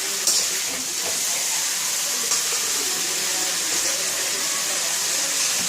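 Beans and diced potatoes sizzling in hot oil in a pan over a high gas flame: a steady hiss, with a couple of short clicks.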